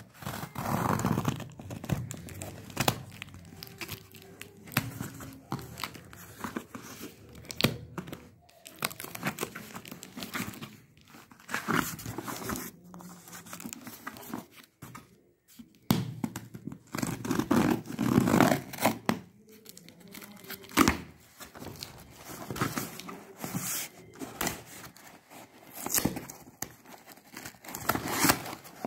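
Cardboard shipping box being torn open by hand, its packing tape ripping and crinkling, in irregular bursts of tearing and scraping with a few quieter pauses.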